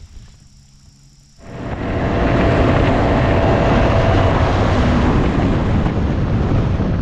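Motorboat running at speed across a lake: steady engine noise mixed with wind buffeting the microphone and water rushing along the hull, starting abruptly about a second and a half in.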